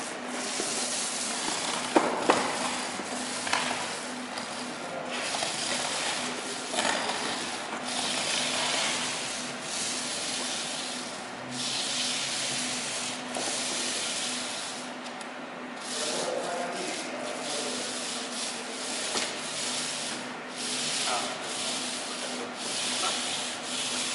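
Paint roller rolling paint onto a wall in repeated back-and-forth strokes, a sticky hiss that swells and fades every second or two, over a steady low hum.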